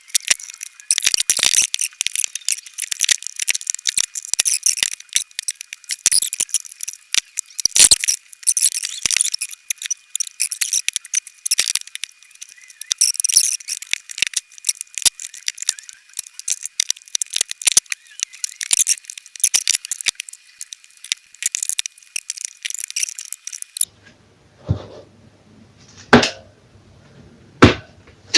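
Tyre levers and tools clinking and rattling against a motorcycle wheel rim as a tubed tyre is worked on and off, in a dense run of quick clicks. A few separate knocks come near the end.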